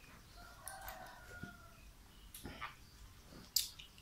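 A rooster crowing once, faint and drawn out for about a second. A sharp click comes near the end.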